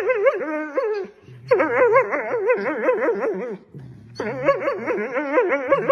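Dachshund making a high, warbling whine-howl, its pitch wobbling quickly up and down, in three long stretches with short breaks between them. A low grumbling growl sits underneath and carries on through the breaks.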